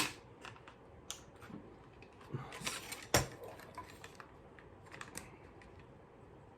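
Scattered clicks and light metal clinks of tools and small hardware being handled while a bass guitar's bridge and screws are taken off. There is a sharper knock at the start and another about three seconds in, with a brief scrape just before the second.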